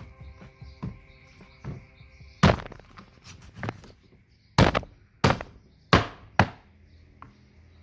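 Cleaver chopping a catfish into steaks on a plastic cutting board: a string of sharp chops, softer at first, then five hard blows between about two and a half and six and a half seconds in.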